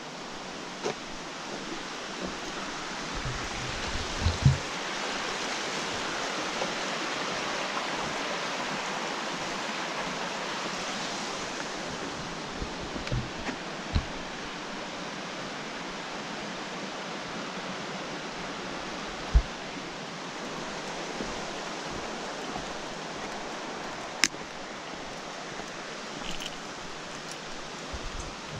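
Shallow rocky river rushing over stones: a steady rush of white water that swells in the middle and eases a little later. A few dull thumps and one sharp click stand out over it.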